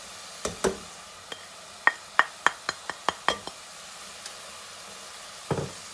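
Ground beef frying with a light sizzle in a steel pan. About a dozen quick, ringing clinks of cookware knocking against the pan come between half a second and three and a half seconds in, as the spices are added, and a short scrape follows near the end.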